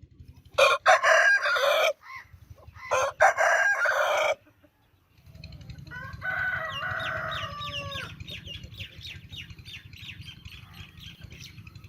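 Roosters crowing: two loud, harsh cock-a-doodle-doos in quick succession, then a softer, more tuneful crow about six seconds in.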